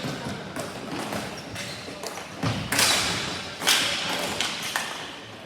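Ball hockey play: a string of sharp thuds and knocks from sticks, ball and boards, loudest between about two and a half and four seconds in.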